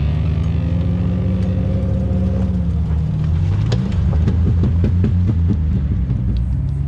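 Lifted Jeep Grand Cherokee ZJ's engine running and revving under load as it climbs a steep off-road slope. Its pitch shifts about three seconds in, then the engine note turns uneven, with scattered clicks and knocks.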